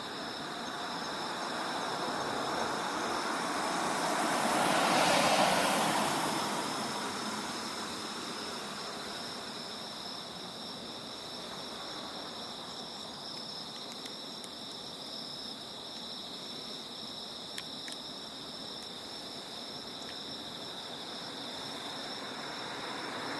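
Autumn night insects trilling steadily at two high pitches while a car passes, swelling to its loudest about five seconds in and fading away; another vehicle starts approaching near the end.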